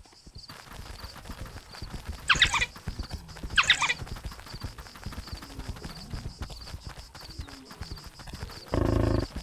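Two short, high-pitched, wavering squeals about a second apart, from African wild dogs calling. Near the end comes a shorter, lower call held on one pitch, over continual faint clicks and knocks.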